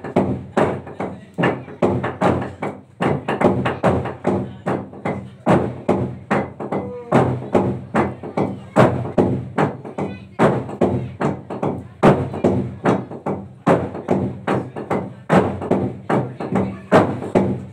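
A team of players beating a long hollowed-log drum with wooden pounders: fast, continuous rhythmic wooden strikes with a deep resonant tone, without pause.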